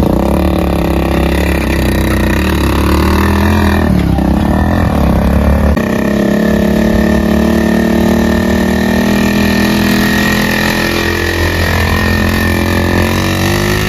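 An old, worn motorcycle's engine running steadily while being ridden with a load, its note shifting about four to six seconds in and rising again near the end.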